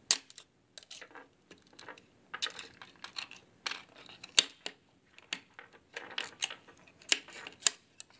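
Small metal parts of a dismantled 2.5-inch laptop hard drive clicking, tapping and scraping under hands and a screwdriver as the platter is worked loose. The clicks come irregularly, and the sharpest are just after the start and about halfway through.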